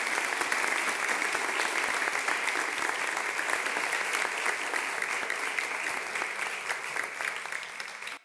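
Audience applauding: dense, steady clapping that stops abruptly at the end.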